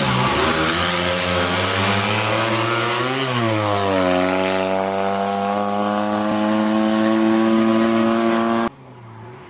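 Fiat 126p hill-climb car's small air-cooled two-cylinder engine revving hard under full throttle, its pitch rising, dropping sharply about three seconds in, then climbing slowly again. Near the end the sound cuts off abruptly to a much quieter engine sound.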